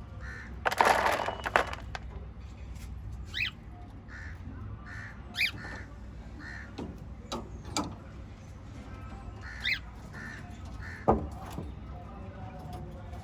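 Pet cockatiel and budgies calling: one loud harsh screech about a second in, then short pitched chirps every couple of seconds over soft, steady chatter.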